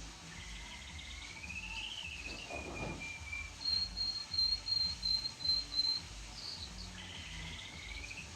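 Red factor canary singing in fast trills: a rising trill, then a louder pulsing high trill about midway, and another rising trill near the end.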